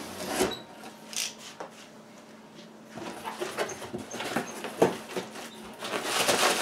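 Utility knife scraping and slicing through packing tape on a cardboard box, in short irregular scratches and clicks. Near the end the cardboard flaps are pulled open with a louder rustle.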